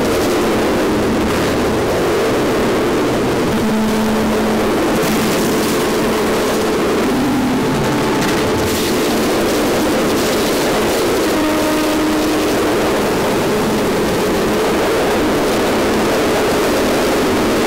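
Harsh noise music: a loud, unbroken wash of noise, heaviest in the low middle range, with a few short held tones showing through it now and then.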